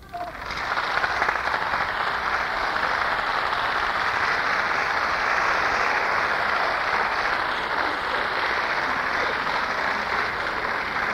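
Audience applauding steadily, heard through a boom-box cassette recording with little treble.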